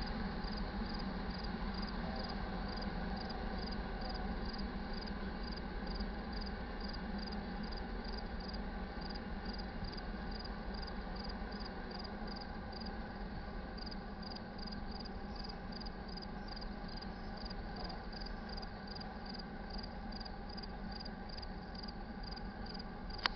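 Cricket chirping steadily, about two high chirps a second, over a low steady rumble that slowly fades.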